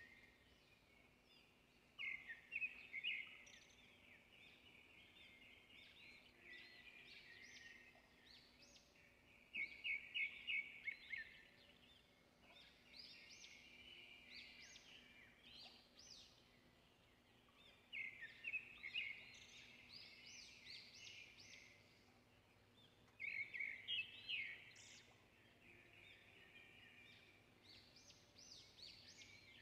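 Faint bird chirping in short bouts of quick notes that recur every few seconds.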